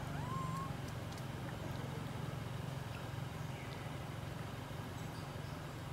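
A steady low engine hum, with two faint short high squeaks: one just after the start and one about three and a half seconds in.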